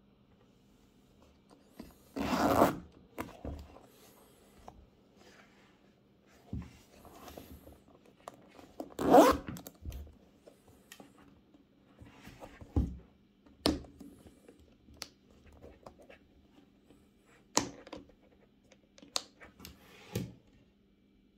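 Handling noise from a leather winter boot being gripped and turned over by hand on a wooden desk: two longer scraping rubs, one about two seconds in and the loudest about nine seconds in, then scattered sharp taps and knocks.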